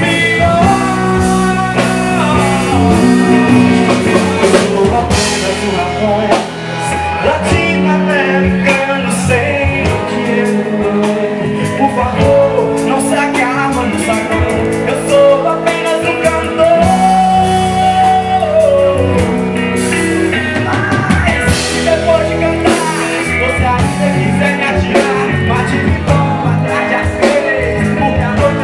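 A band playing a rock song, with drums and a singer.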